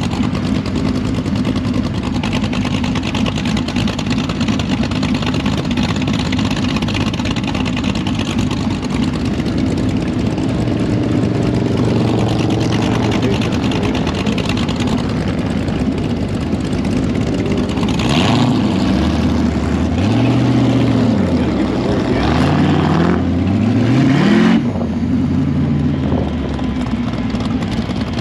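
Boss Hoss V8 motorcycle engine running steadily at low revs, then accelerating away, its pitch rising and dropping several times as it pulls through the gears.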